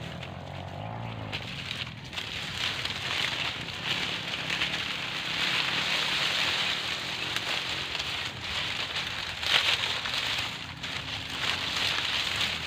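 Smoke fire crackling and hissing, lit under a wild honeybee nest to smoke out the bees; the crackle grows louder over the first few seconds.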